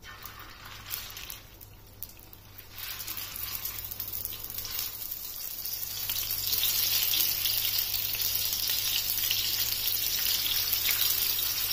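Seekh kababs on metal skewers sizzling in oil on a hot iron tawa. The frying grows louder as more skewers are laid down, with a few light clicks in the first couple of seconds as the skewers meet the griddle.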